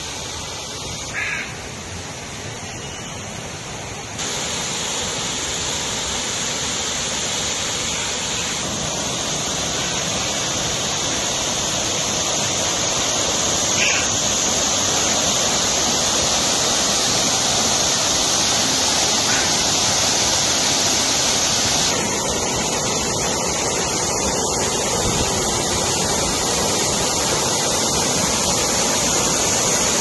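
Water pouring down a man-made rock waterfall: a steady rushing hiss. It gets louder about four seconds in and stays loud as the falls come close.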